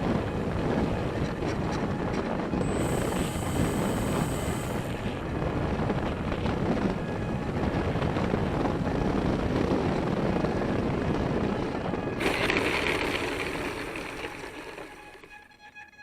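E-flite Apprentice STS RC plane in flight, heard from its wing-mounted camera: a steady rush of air with the electric motor and propeller running. The sound changes about twelve seconds in, then dies away near the end.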